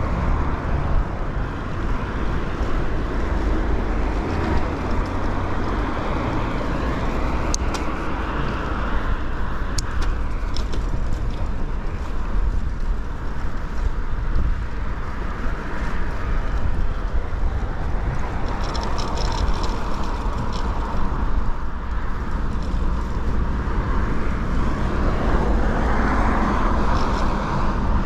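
Road traffic heard from a moving bicycle: a steady wash of passing cars with wind rumbling on the action camera's microphone. A few faint high clicks, and a vehicle passes close near the end.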